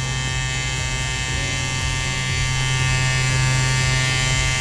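Permanent makeup machine running with a cartridge needle: a steady electric buzz with a strong low hum as the needle strokes in and out.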